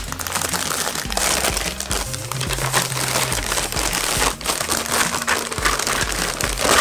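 Clear plastic bag crinkling and rustling in irregular crackles as it is handled, holding large grey LEGO plates.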